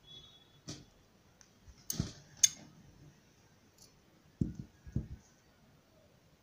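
Small handling sounds of sewing and trimming a satin ribbon bow: several sharp clicks of scissors and needle work, the loudest about two and a half seconds in, as scissors snip the sewing thread. Two dull knocks follow about four and a half and five seconds in.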